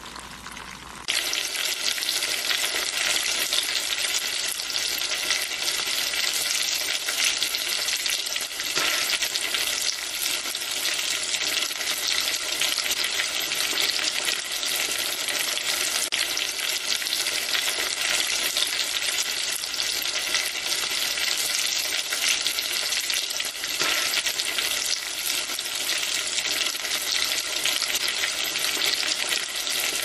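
Chicken pieces frying in hot oil: a dense, steady crackling sizzle. It comes in abruptly and much louder about a second in, after a quieter bubbling of deep-frying.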